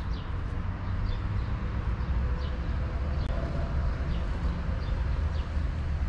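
A small bird chirping, short falling chirps about once or twice a second, over a steady low rumble.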